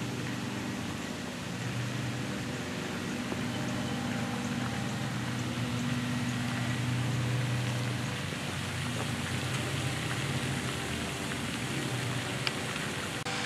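Steady splashing rush of a fountain's spray falling onto a pond, sounding like rain, with a low steady hum underneath.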